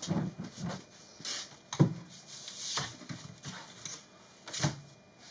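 A pleated furnace air filter being handled and slid into its box on a workshop air filter: several knocks and thumps with short scraping and rustling between them, the sharpest thump just under two seconds in and another near the end.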